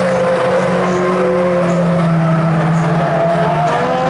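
Several small hatchback race cars running hard around an oval track, their engine notes overlapping at different pitches and rising and falling as they lap.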